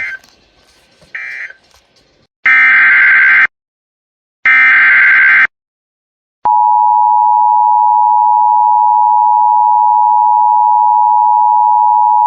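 NOAA Weather Radio emergency alert transmission: two loud one-second bursts of screeching SAME digital header data, a second apart, then about six and a half seconds in the steady single-pitch weather radio warning alarm tone begins and holds. This signals the start of a new severe weather warning.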